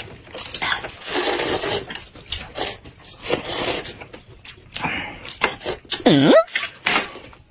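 Noodle slurping and chewing: a run of short, noisy slurps of hot-and-sour sweet-potato starch noodles. About six seconds in, a brief vocal sound that dips then rises in pitch is the loudest moment.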